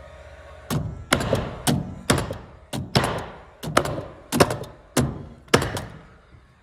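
Nails being driven into wood: about a dozen sharp thunks, roughly two a second, each with a brief ring.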